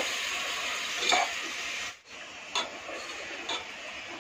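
Tomato and onion masala sizzling in a pot while a spoon stirs and mashes it. About halfway the sizzle suddenly drops to a quieter hiss, with a couple of sharp clicks of the spoon against the pot.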